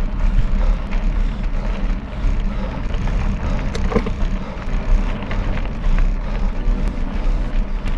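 Mountain bike climbing a gravel road: tyres crunching and rattling over the gravel under a steady low rumble, with scattered knocks, a sharper one about four seconds in.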